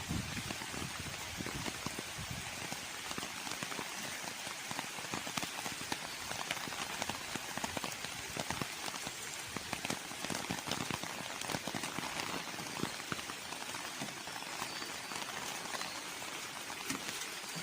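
Steady rain falling, a continuous hiss with many small drop ticks throughout.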